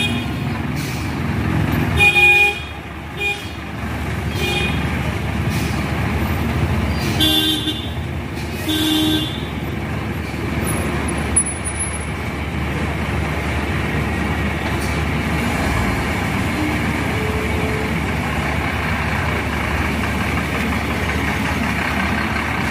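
Ashok Leyland coach's diesel engine running as the bus moves off slowly. Several short horn toots sound during the first ten seconds, the longest about two seconds in.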